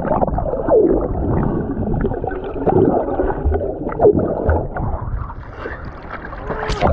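Sea water heard from under the surface: muffled bubbling and gurgling as a swimmer dives under, with a sharp splash near the end as the microphone comes back up into the air.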